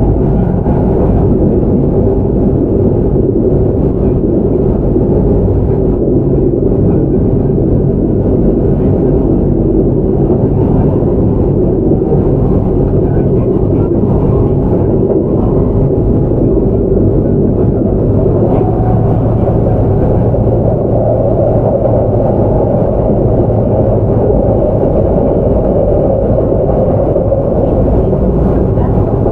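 Kintetsu 5800 series electric commuter train running, heard from inside the car: a steady loud rumble of wheels on rail and running gear. A low steady hum comes in about two-thirds of the way through.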